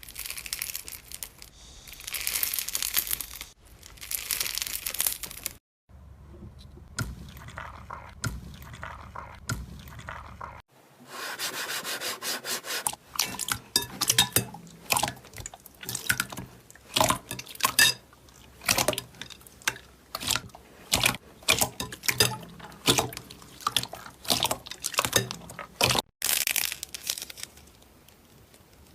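Hands squishing and stretching slime: wet, sticky squelches, then a quick run of sharp clicks and pops, in several short clips cut together.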